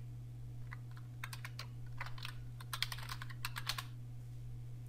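Computer keyboard keys clicking in quick, irregular runs of typing that stop about four seconds in, over a steady low hum.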